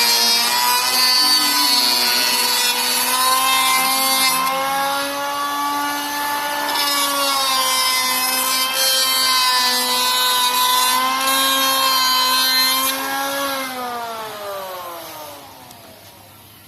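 Makita electric hand planer running at full speed with a steady high whine and a hiss of the blades on wood. Near the end it is switched off and winds down, its pitch falling as it slows.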